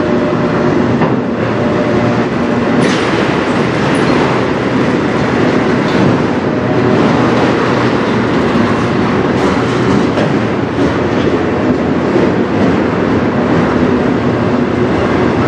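Autorack freight cars rolling past at close range: a steady, loud rumble of steel wheels on the rails.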